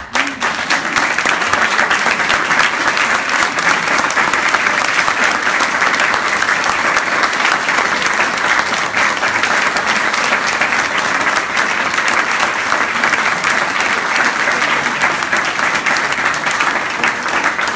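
Theatre audience applauding: a dense crackle of clapping that breaks out at once and holds steady.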